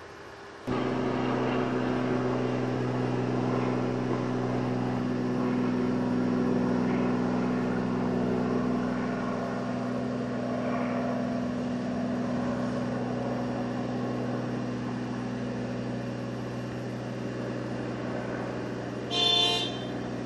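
An engine starts to be heard abruptly about a second in and runs at a steady, unchanging speed. Near the end there is a short horn-like toot.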